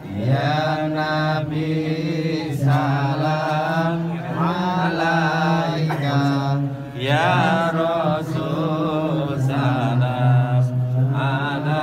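A group of voices chanting an Islamic devotional song (sholawat) in unison, with long held, wavering notes sung phrase after phrase and short pauses between phrases.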